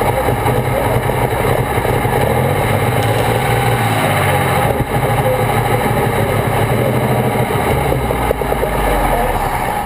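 Engine of a superstock pulling tractor with twin exhaust stacks, running steadily at low revs, heard close up from the tractor's own hood.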